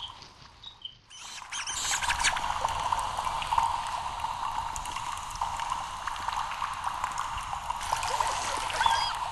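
Water running and trickling through a sewer pipe, dropping away briefly and coming back louder about a second in, with short high rat squeaks over it now and then.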